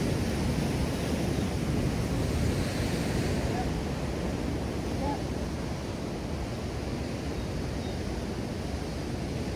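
Ocean waves washing in with wind buffeting the microphone, an even, steady rush.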